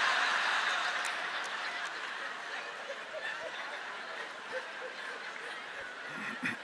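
Congregation laughing, loudest at the start and slowly dying away.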